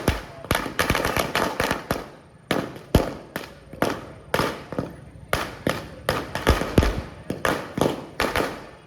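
Fireworks going off in quick succession: a dense run of sharp bangs and cracks, several a second, that stops abruptly near the end.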